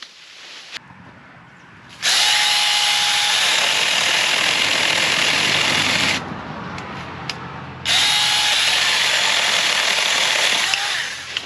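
Saker mini battery-powered electric chainsaw running in two bursts of about four and three seconds, cutting through tree branches, each burst starting with a short steady whine as the motor spins up.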